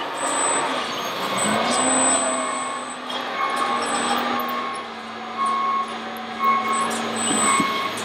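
RC model construction machines running their simulated diesel engine sounds: a steady engine drone that drops off and picks up again twice. Short beeps repeat about once a second in the second half.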